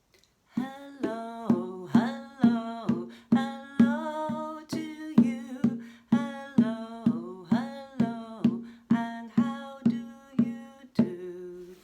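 Intro music: a plucked string instrument, guitar or ukulele, playing a bouncy tune with a note about every half second, stopping about 11 seconds in.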